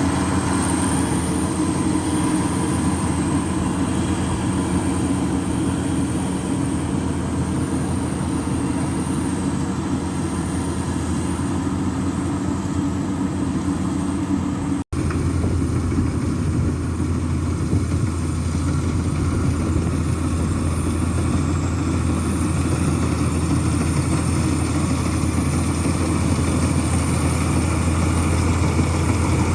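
Heavy machine engine running steadily and loudly, with a brief dropout about halfway through where the sound cuts for an instant.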